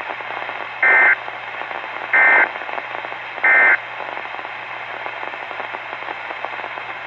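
Three short bursts of SAME digital data tones from a Weatheradio broadcast, each about a third of a second long and a little over a second apart. They are the screeching two-pitch code that marks the end of an alert message, heard over steady radio hiss.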